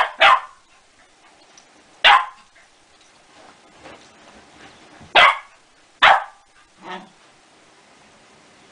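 Spoodle (cocker spaniel–poodle cross) barking in short, sharp barks: a quick pair at the start, then single barks about two, five and six seconds in, and a softer, lower bark near seven seconds.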